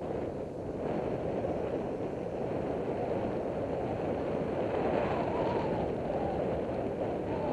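Steady wind rush on the microphone of a moving bicycle, mixed with the low rumble of its tyres on the asphalt trail.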